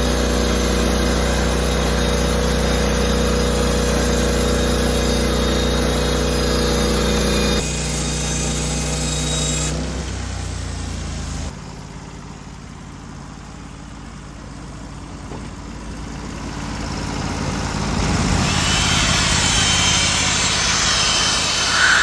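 Sawmill engine running steadily, then stepping down in two stages about eight and ten seconds in and dropping away a little after eleven seconds. Over the last several seconds a broad rushing noise swells up and holds.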